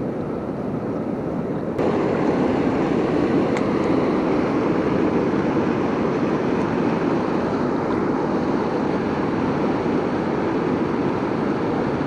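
Steady rush of whitewater pouring over and churning below a low dam, a dense even noise that gets louder about two seconds in and then holds.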